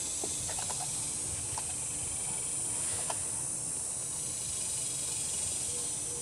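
Steady high-pitched background hiss, with a few faint light clicks in the first three seconds.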